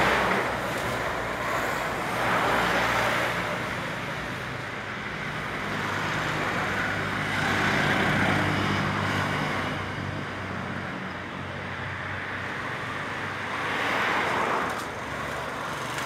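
Road traffic: a steady engine hum under the noise of vehicles passing, swelling and fading several times.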